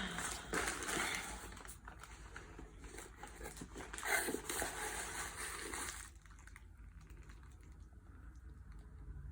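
Rustling and crinkling of gift wrap and packaging as a taped box is worked open. It stops about six seconds in.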